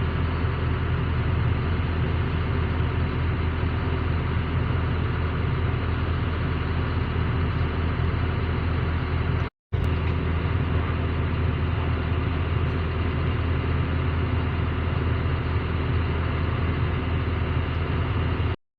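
Diesel excavator engine running steadily with an even low hum. The sound cuts out for a moment about halfway, then the same steady running resumes.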